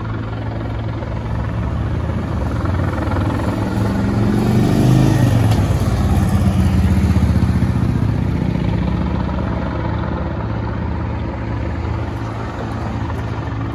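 Military helicopter hovering at a distance, its rotor and engine making a steady hum. About four seconds in, a vehicle passes close by with its engine pitch falling as it goes, the loudest sound for a couple of seconds.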